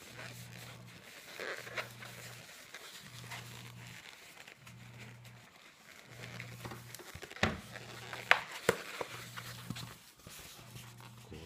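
Long latex modelling balloon rubbing and squeaking under the hands as it is twisted and folded, with a few sharp squeaks about seven to nine seconds in. Under it runs a low hum that pulses about once a second.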